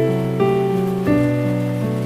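Slow piano music, new notes struck about half a second and a second in and left ringing, over a steady patter of rain falling on leaves.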